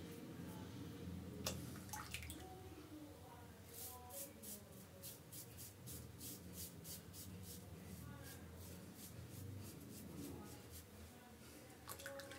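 Mühle R41 double-edge safety razor scraping through lathered beard stubble in a quick series of short strokes, faint.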